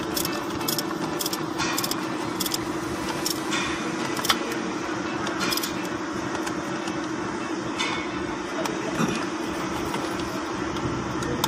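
Small metallic clinks and ticks of hand tools on metal parts during diesel pump work on a truck, frequent in the first few seconds and sparser after, over a steady mechanical hum.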